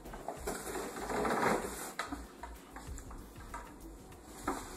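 Packaging being unpacked: a cardboard box and its contents rustle and scrape as the clear plastic upper chamber of a Berkey Light water purifier is lifted out, with scattered clicks and rattles of the plastic parts.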